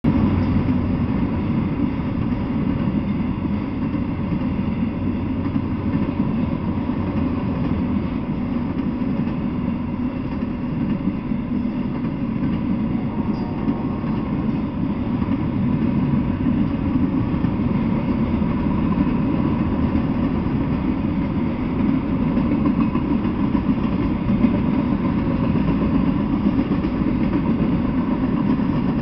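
Freight train of enclosed autorack cars rolling past, a steady rumble of steel wheels on the rails.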